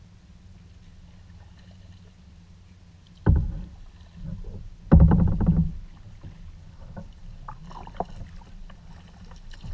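Kayak paddle strokes in the water close to the bow: two louder splashes about three and five seconds in, then lighter dips and drips, over a steady low rumble.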